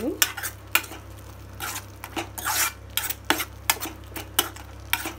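A steel spoon stirring and scraping thick masala paste around a non-stick frying pan, with irregular clinks of the spoon against the pan.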